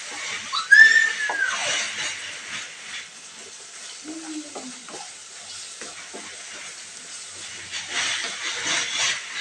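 Wooden spatula stirring and scraping spice masala that sizzles in hot oil in a kadhai. A short high squeal about a second in is the loudest moment.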